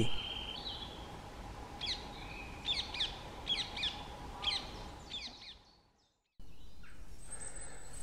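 Male Eurasian nuthatch singing: a series of clear, downslurred whistles repeated about every half second.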